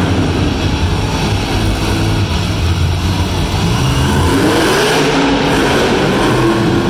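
Max-D monster truck's supercharged V8 engine running loudly as the truck drives across the dirt, with the revs rising about four and a half seconds in.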